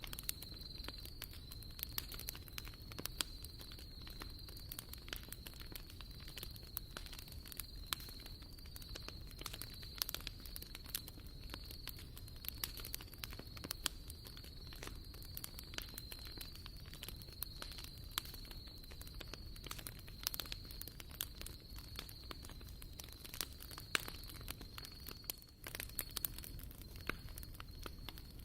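Wood fire crackling with irregular snaps and pops over a low rumble, with a steady high-pitched trill behind it.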